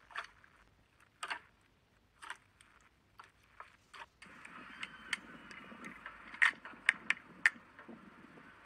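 Hands squeezing clear slime with clear jelly chunks in a glass bowl: separate squishy crackles about once a second. About four seconds in, a steady hiss starts and clear cubes drop into a bowl of pink clear slime with several sharp clicks.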